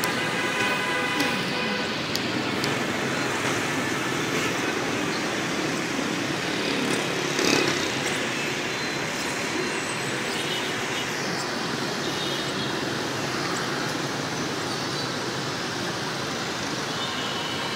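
Steady city street traffic noise from motorbikes and a bus, a dense wash of engines and tyres. A few brief high-pitched tones sound near the start and again past the middle, and there is a short louder burst about seven and a half seconds in.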